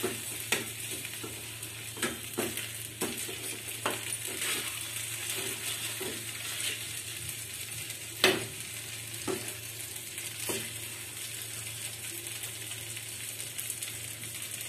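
Cooked broken wheat (daliya) sizzling in a metal kadhai while a spatula stirs it, scraping and knocking against the pan about once a second. The loudest knock comes about eight seconds in, and the strokes stop a few seconds before the end, leaving the sizzle and a low steady hum.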